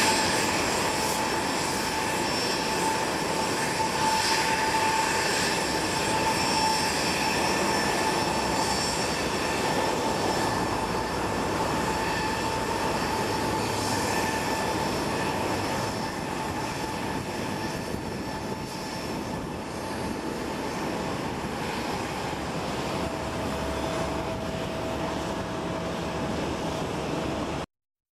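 Boeing 737-800's CFM56-7B turbofan engines running at taxi power as the airliner taxis: a steady jet whine with several high tones over a broad rush. The sound cuts off abruptly near the end.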